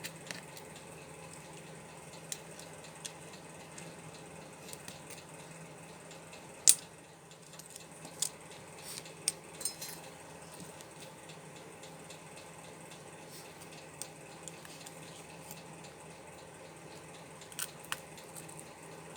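Scattered small sharp clicks and taps of repair tools working inside an opened smartphone, over a faint steady hum; the loudest click comes about seven seconds in, with a few more over the next three seconds and a pair near the end.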